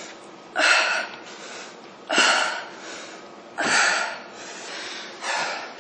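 A woman breathing hard under exertion: four sharp, forceful exhalations about a second and a half apart, in rhythm with her exercise repetitions.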